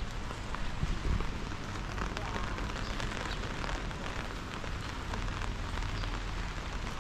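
Steady rain falling, with the patter of many small drops hitting surfaces.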